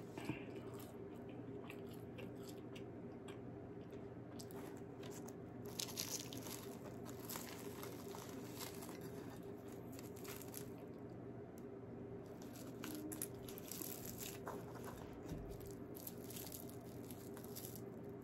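Flaky croissant being torn apart by hand and chewed: faint, scattered crackles of crisp pastry, with a few louder crunches about six and ten seconds in.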